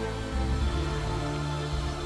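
Background music: sustained instrumental tones over low bass notes between sung lines, with no voice.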